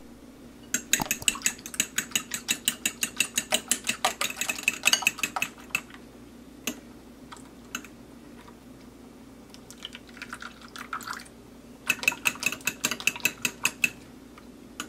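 A metal fork whisking raw eggs in a ceramic bowl, clinking rapidly against the bowl at about six strokes a second. It comes in three spells, with a pause after the first and a softer, shorter middle spell.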